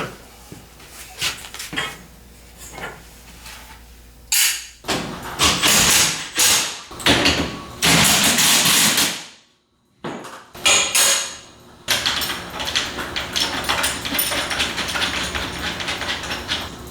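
Work on metal conduit with tools: scattered knocks and clanks, then several loud bursts of tool noise broken by a brief silence, and a stretch of steady working noise with rapid ticking.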